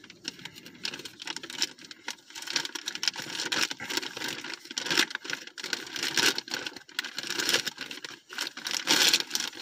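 A shipping package being cut and torn open with a knife, with irregular tearing, crinkling and scraping of the wrapping.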